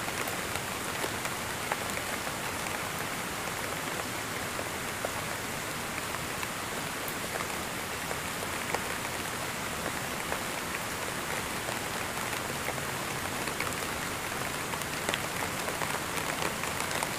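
Recorded rainfall: a steady even hiss of rain with scattered drop ticks throughout.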